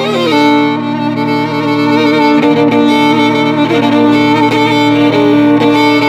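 Violin improvising: a quick slide up and down at the start, then long held notes, often two sounding together, over a steady low drone.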